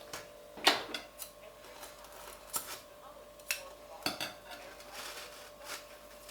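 Dishes and cutlery clinking: a series of separate sharp knocks and clatters, the loudest about two-thirds of a second in.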